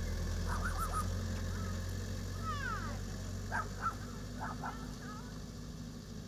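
Small covered truck's engine running with a steady low hum as it drives off across a field, easing slightly toward the end. Short bird calls sound over it, some sliding downward, most of them in the second half.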